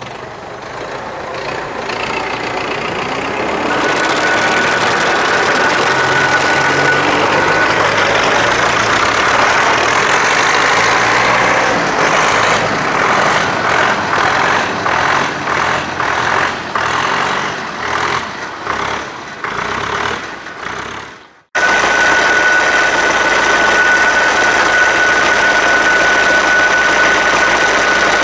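UTB Universal 650 tractor's four-cylinder diesel engine running as the tractor drives along. About 21 seconds in the sound breaks off suddenly, then the engine is heard running steadily with a thin, steady high whine over it.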